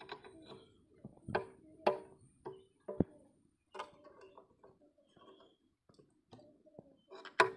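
Adjustable spanner clicking and clinking against a hex nut as it is worked round, refitting a braided line's fitting on a diesel engine; separate metallic ticks every half second or so, with a louder knock near the end.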